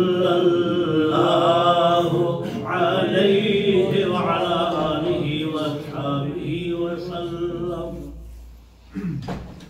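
Islamic devotional chanting, sung without instruments, with long held notes that waver in pitch. It fades away about eight seconds in.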